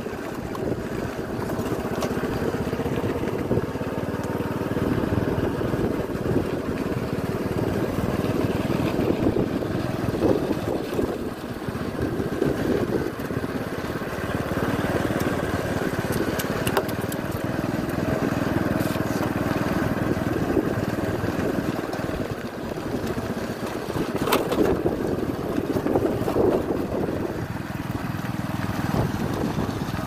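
A vehicle's engine running steadily while riding along a bumpy dirt track, with road and wind noise and a few short knocks.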